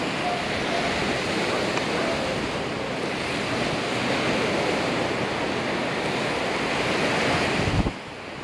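Wind-driven lake waves washing onto a sandy shore, with wind over the microphone: a steady rush that drops off suddenly near the end.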